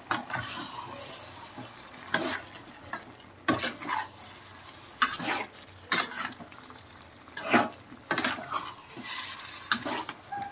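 Metal slotted spatula scraping and knocking against a frying pan in repeated, irregular strokes as boiled chicken pieces are mixed into a sizzling tomato-and-masala gravy. A light sizzle runs between the strokes.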